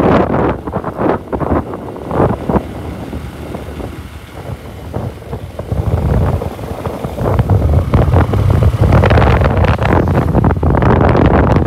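Wind buffeting the microphone on a moving motorcycle, with the bike's engine running underneath. The buffeting eases for a few seconds and picks up again about halfway through.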